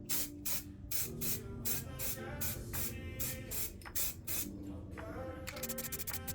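Background electronic music with a steady beat, its drum hits about three a second and quickening into a fast roll near the end.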